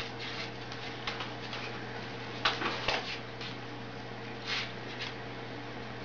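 A white cockatoo moving about on a wooden tabletop: a few short scratchy sounds, the loudest a quick cluster about two and a half seconds in and another near four and a half seconds, over a steady low hum.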